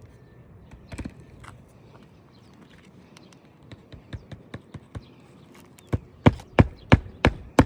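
Hand hammer blows on an asphalt-shingle roof: a few light taps, then a run of sharp, evenly spaced strikes, about three a second, near the end.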